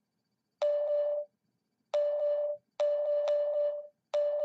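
Fish alarm of the Deeper fishfinder app sounding through a smartphone speaker: a run of short beeps of the same pitch, about one a second, each one signalling a fish picked up on the sonar scan.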